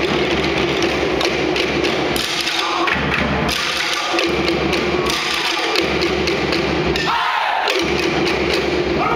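Tahitian drum ensemble playing a fast, driving rhythm on wooden slit drums over a bass drum.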